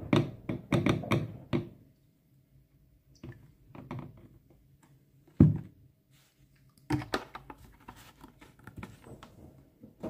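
Plastic bottles and a jug being handled on top of a washing machine: a run of clicks and knocks, one loud, heavy thunk about five and a half seconds in, then more clicking near the end. Under it the washing machine hums faintly as it runs.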